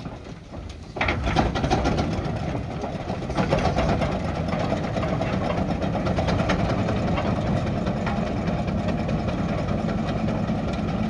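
Mann steam wagon's steam engine working as the wagon drives off, a fast, even beat that starts suddenly about a second in.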